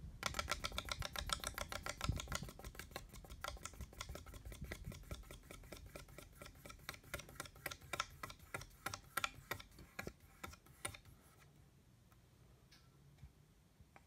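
Noisy ceiling fan making a fast, regular clicking as it spins, several ticks a second. The ticks space out and stop about eleven seconds in as the blades slow down.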